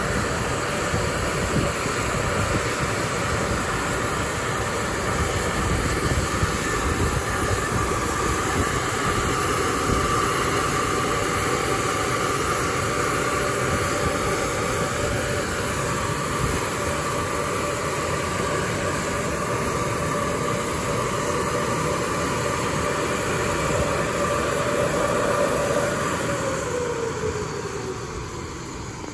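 Washworld car wash's Power-Rain blower dryers running with a steady rush of air and a faint whine, then spinning down near the end, their pitch gliding lower as they wind down.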